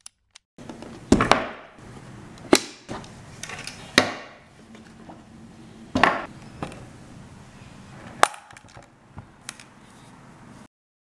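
Wooden boxes of pastels and pastel pencils handled on a wooden table: about eight sharp, irregular clacks and knocks as trays and lids are moved and set down, over a low room hum. The sound cuts off abruptly near the end.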